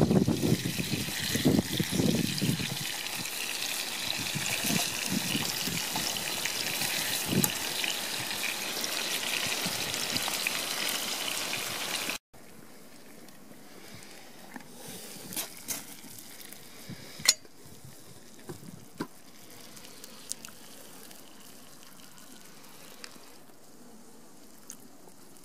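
Beef steaks sizzling in a frying pan over a campfire: a loud, steady hiss with some crackle in the first seconds. About twelve seconds in it cuts to a much quieter, faint hiss with a few scattered crackles from a small wood stove heating a steel mug of water.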